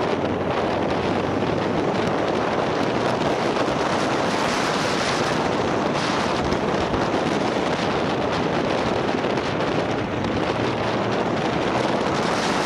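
Wind buffeting the microphone of a moving motorcycle, a steady rushing noise, with the engine's low hum faintly underneath.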